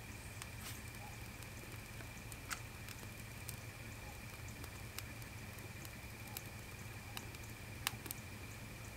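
Small wood fire in a steel pedestal campsite grill crackling faintly with sparse, irregular pops, a louder pop about two and a half seconds in and another near the end. Under it sit a steady low hum and a faint steady high tone.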